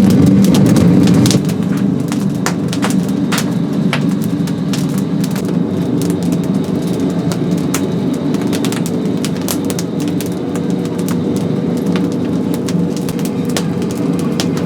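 Oak firewood crackling in the fire, with sharp irregular pops every second or so over a steady low hum that is louder for the first second and a half.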